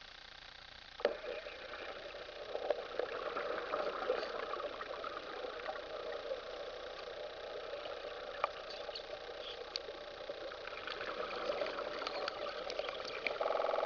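Underwater cutting torch striking up about a second in, then crackling, fizzing and bubbling as its burning rod cuts into a rusted pile, with many sharp pops through the burn. A brief buzz comes near the end, as the sound cuts off.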